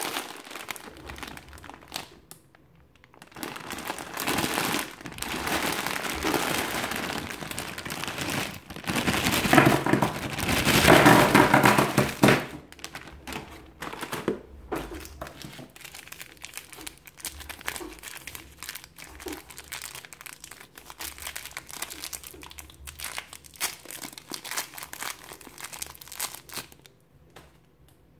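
Plastic chocolate-bar wrappers crinkling and rustling as a large bag of mini chocolate bars is opened and handled. It is loudest from about three to twelve seconds in, then gives way to quieter, scattered crinkles and light clicks as the individual wrappers are handled and one bar is unwrapped.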